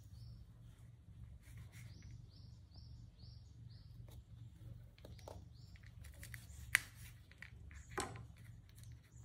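Kitchen knife slicing through a soft, moist cucumber cake on a banana leaf, faint and scraping, with two sharp taps of the blade late on. A small bird chirps over and over, about three chirps a second, through the first few seconds and again later.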